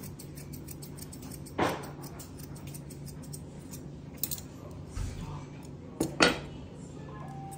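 Dog-grooming shears snipping the hair on a Scottish terrier's face: a few sharp metallic snips spaced apart, the loudest two in quick succession near the end, over a steady low hum.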